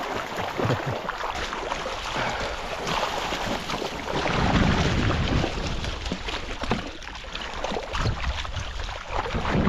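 Water splashing and sloshing as a net full of vendace is hauled through shallow river water, with wind buffeting the microphone, strongest about halfway through.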